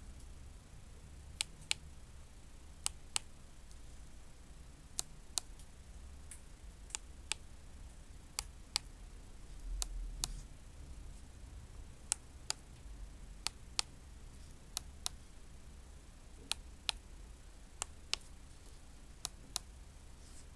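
Push buttons on an EmbiTec LightOne Pro keypad clicking under a fingertip. About a dozen presses come roughly every second and a half, each a pair of sharp clicks about a third of a second apart.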